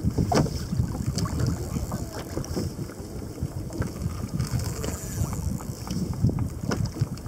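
Wind buffeting the microphone in a continuous, gusting low rumble, with water sloshing around a kayak on choppy sea and a few scattered small ticks.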